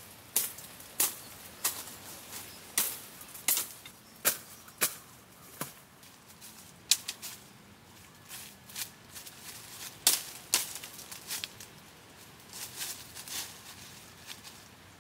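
Irregular sharp knocks of hand-tool work, about one or two a second, thinning out in the middle and picking up again near the end.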